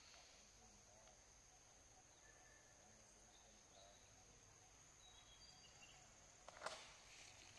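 Faint forest ambience: a steady high-pitched insect buzz with a few faint, short bird chirps, and a brief crackle about six and a half seconds in.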